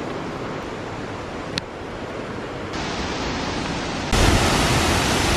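Steady rushing roar of falling water from the La Fortuna waterfall, louder in two steps, sharply about four seconds in, with one brief click about a second and a half in.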